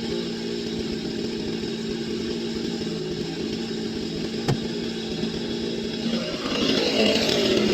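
Chainsaw engine running at a steady speed, with one sharp click about four and a half seconds in; about six seconds in it grows louder and harsher.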